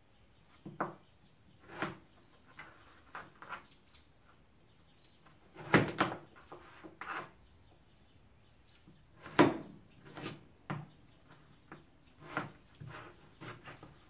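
Kitchen knife slicing peeled raw potatoes on a plastic cutting board: a dozen or more irregular knocks of the blade meeting the board. The loudest come about six and nine and a half seconds in.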